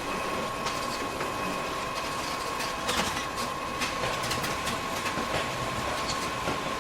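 Photocopier running a booklet-making job: a steady mechanical whir with a constant whine, broken by irregular clicks and clacks from the paper handling.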